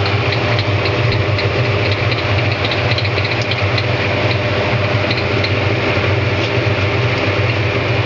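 Hoover 200M top-loading washing machine spinning its empty drum on a dry run: a steady motor hum with faint, irregular light ticks.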